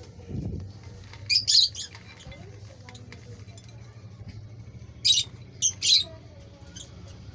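Pet parrots giving short, high-pitched squawks and chirps in two quick clusters, about a second and a half in and again about five seconds in.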